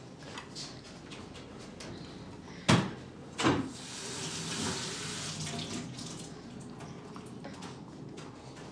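Two sharp knocks a little under a second apart, then a kitchen tap running into the sink for about two seconds.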